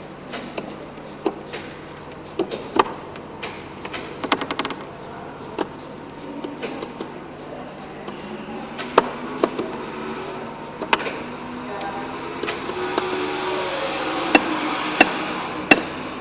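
Electric linear actuators and small motors slowly lifting hinged wooden panels: scattered sharp clicks and ticks, with a motor whir that swells over the last few seconds.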